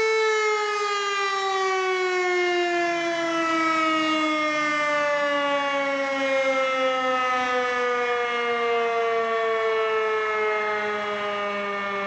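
Civil-defence siren: a single steady tone that begins, right at the start, to fall slowly and evenly in pitch, winding down over the whole stretch without stopping.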